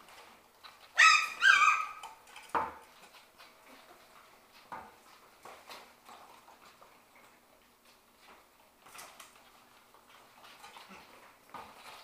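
Shetland sheepdog puppies at play: a puppy gives two short, high yips about a second in, then scattered light knocks and scuffles follow.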